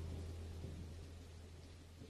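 The last low sustained note of a music track, a deep hum fading steadily away.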